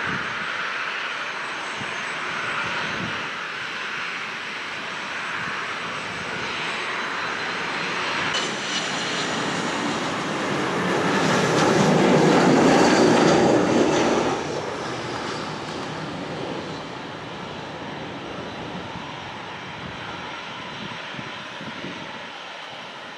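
McDonnell Douglas MD-80's Pratt & Whitney JT8D jet engines running on approach and landing. The jet noise swells to its loudest about halfway through, then eases off.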